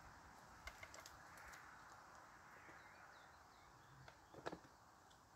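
Near silence: quiet outdoor ambience with a few faint clicks, the clearest about four and a half seconds in.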